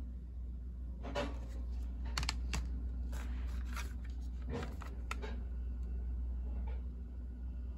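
Plastic CD jewel cases being handled and turned over: a few light clicks and clacks, with a short scraping rustle about three seconds in, over a steady low hum.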